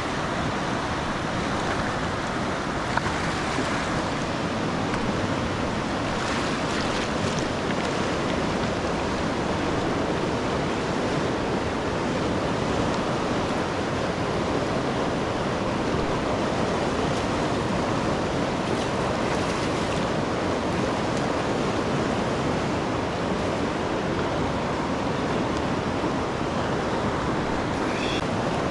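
Steady rushing of water, with a single short click about three seconds in.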